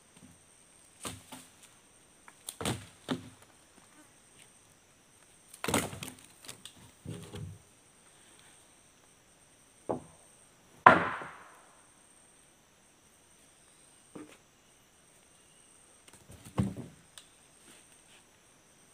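Freshly sawn mapala timber beams and boards being lifted and set down on a stack: a series of separate wooden knocks and thuds, the loudest a little past halfway with a short ringing tail. Insects buzz steadily in the background.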